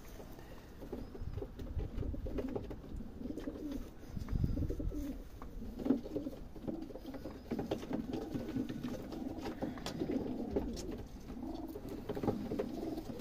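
Pigeons cooing continuously, a low warbling murmur, with scattered short clicks and scuffs.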